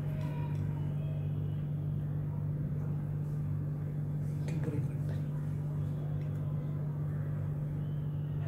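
Steady low mechanical hum at a fixed pitch, with a few faint soft handling clicks as a toasted crepe is pulled apart by hand.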